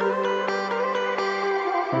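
Background music: a run of plucked notes, one about every quarter second, over a held low note that shifts near the end.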